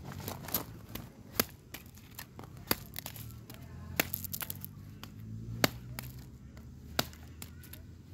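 Small hatchet chopping a stick of firewood into kindling: sharp knocks of steel into dry wood, roughly one a second, with a quick cluster of small cracks midway as the wood splits.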